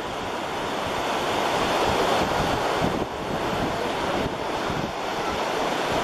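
Surf breaking on a sandy beach: a steady rush of waves that swells about two seconds in, with wind on the microphone.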